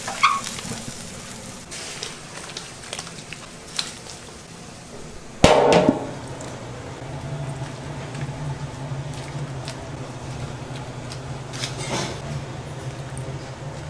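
Kitchen utensil clatter: scattered light clicks and knocks, then one loud metallic clank that rings briefly about five and a half seconds in, followed by a steady low hum.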